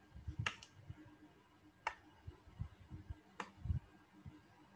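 Computer mouse clicks: a few faint, sharp single clicks about a second and a half apart, with soft low thuds between them.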